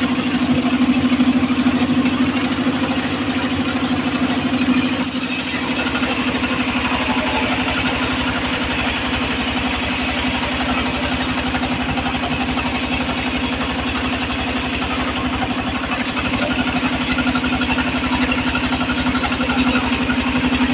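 Engine of a homemade circular saw rig running steadily with a fast, even beat.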